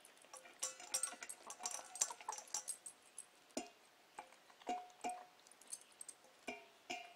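Light rapid clicking and clinking at a stainless steel bowl, then from about three and a half seconds in a handful of sharper taps as a hen's beak pecks the metal bowl, each tap ringing briefly.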